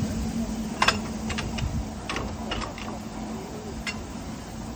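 Sharp metallic clicks and knocks from a narrow-gauge double Fairlie steam locomotive moving slowly. The loudest knock comes about a second in, then a scatter of lighter clicks over the next three seconds.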